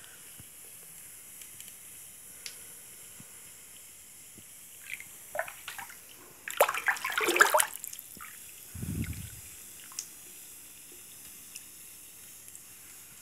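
Bathwater splashing and sloshing, loudest for about a second midway, over a faint steady fizz from a dissolving bath bomb. A brief low thump follows shortly after the splashing.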